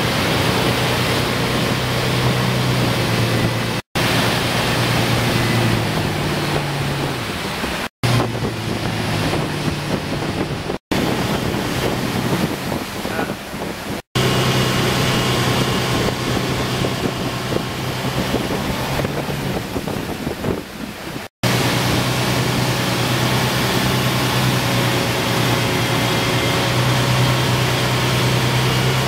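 Motorboat engine running steadily at towing speed under the rush of churning wake water and wind on the microphone. The sound breaks off for an instant about five times, jumping between takes.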